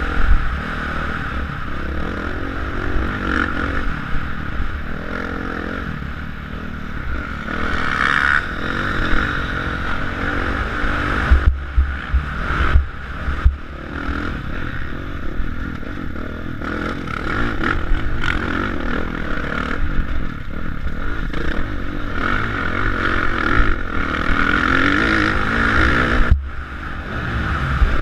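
Motocross bike engine ridden hard, revving up and down as the rider works the throttle, with the sound dropping away sharply for a moment a few times. Heard from a helmet-mounted camera, with heavy wind buffeting on the microphone.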